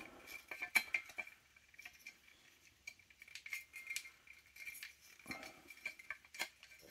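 Scattered light clicks and knocks of an airsoft rifle's gearbox and plastic receiver parts rubbing and tapping as they are worked apart by hand.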